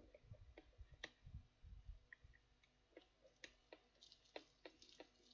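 Faint scattered clicks and taps of plastic headphone ear-cup parts and a small screwdriver being handled as the headphone is taken apart.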